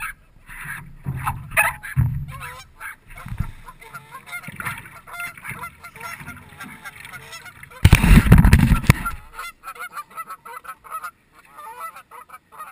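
Canada goose honking over and over in short, rapid calls. A loud rushing burst lasting about a second breaks in about eight seconds in.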